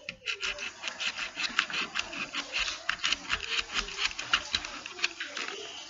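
Fingertips rapidly scratching across soft chalk pastel sticks to raise chalk dust, a dry rhythmic scraping of about five strokes a second.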